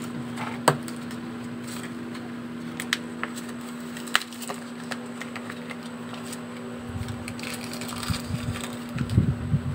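Handling noise of makeup items and a clear plastic pouch: scattered sharp clicks and taps of small plastic pieces, a few dull bumps near the end, over a steady low hum.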